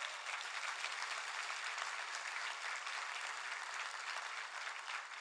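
A congregation applauding: many hands clapping together in a steady patter that swells in and tapers off near the end.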